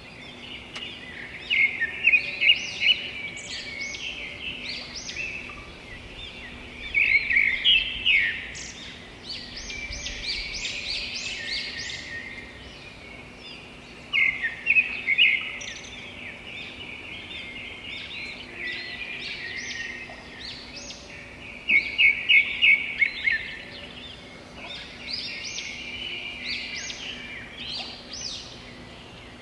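Birds chirping and singing continuously, with louder clusters of rapid chirps returning about every seven seconds.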